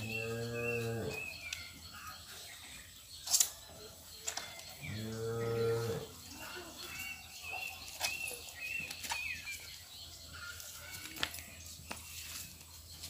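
Cattle mooing twice, each a low call about a second long, the second about five seconds after the first. A single sharp click a little past three seconds in is the loudest moment.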